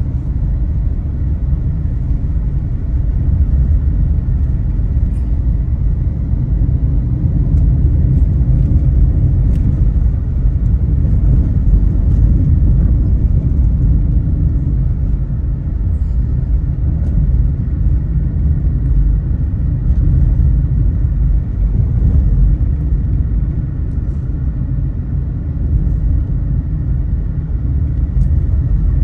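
A car driving: steady low rumble of engine and road noise, with little change in level and a few faint clicks.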